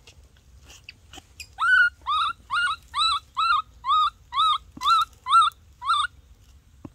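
A baby monkey crying in a quick series of about ten short, squeaky calls, each rising then dropping in pitch, about two or three a second. It starts a little under two seconds in and stops about a second before the end.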